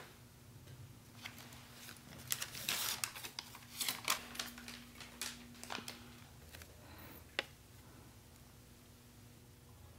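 A crumpled sheet of lined notebook paper being unfolded and handled: a run of crisp rustles and crinkles, then a single sharp click later on.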